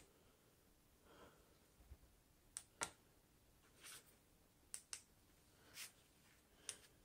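Mostly quiet, with a few short, sharp plastic clicks, some in quick pairs, and soft rustles between them from a handheld TV remote being pressed and handled.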